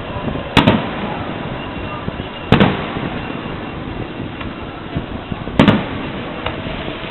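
Aerial firework shells bursting: three loud booms about two to three seconds apart, each a quick double crack followed by a short rumbling tail.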